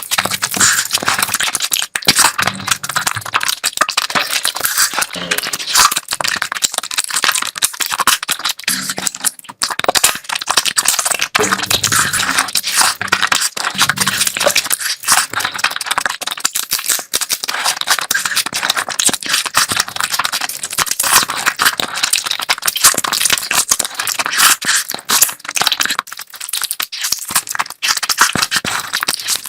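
Close-miked eating sounds: steady chewing and crunching of curry, with wet mouth clicks and smacks crackling densely throughout.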